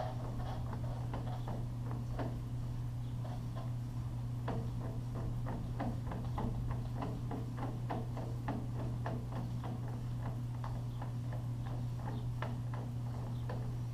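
Irregular light clicks, a few a second, as a screwdriver turns a sliding door's roller height-adjustment screw, over a steady low hum.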